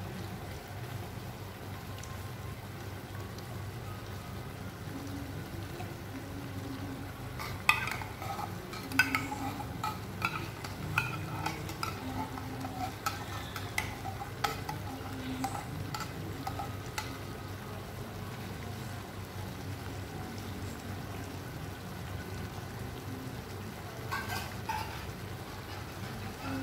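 Pan of vegetable stew simmering and sizzling steadily, with a spoon clinking and scraping against the pan now and then between about 8 and 17 seconds in and again near the end.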